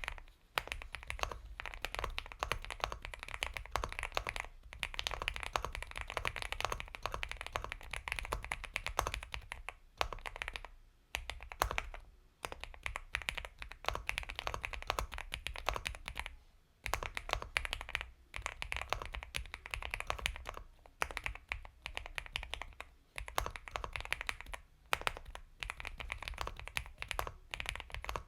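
Typing on an Epomaker x Feker Galaxy 80 mechanical keyboard with Gateron Milky Yellow Pro linear switches: fast runs of soft keystrokes broken by several short pauses.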